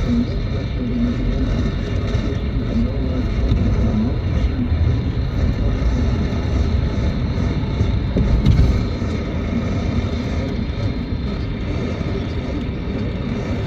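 Weak, noisy AM radio reception: a steady wash of static and rumble with faint steady whistles, the broadcast barely coming through it.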